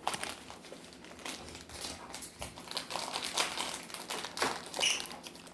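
Plastic snack bag crinkling as it is handled, an irregular run of crackles and rustles.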